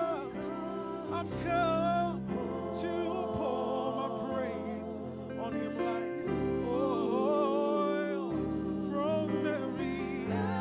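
Gospel vocal group singing held harmonies with sliding vocal runs over low sustained notes, with no clear lyrics.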